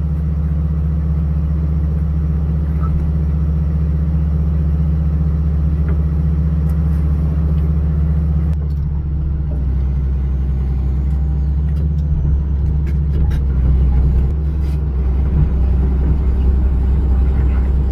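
Diesel engine of a John Deere 200LC (Hitachi EX200) excavator running steadily as the machine works. Its note shifts about halfway through and rises slightly later on.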